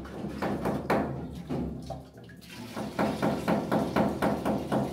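Water poured into a PVC sanitary drain line to fill it for a water leak test, glugging: irregular glugs at first, then a quick, even run of about five glugs a second from about three seconds in.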